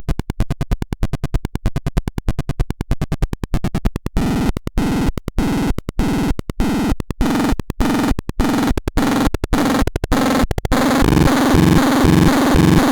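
Electronic tones from a HOXTON LTT336 being demonstrated. It begins as a rapid even pulsing, changes about four seconds in to a slower, uneven pattern of pulses, and switches about ten and a half seconds in to a continuous warbling tone.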